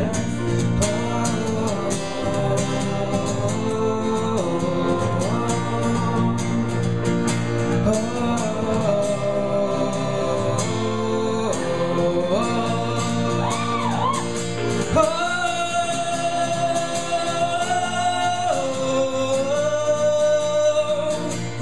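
A man singing live, accompanied by piano and acoustic guitar, with the guitarist also singing. The melody settles into long held notes in the second half.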